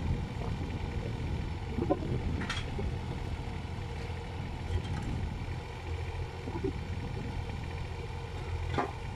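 Kubota KX019 mini excavator's diesel engine running steadily, with a couple of sharp knocks, one about two and a half seconds in and one near the end.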